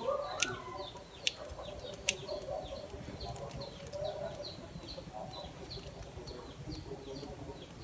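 A bird chirping over and over in short, high, falling chirps, about two or three a second. Three sharp clicks stand out in the first two seconds.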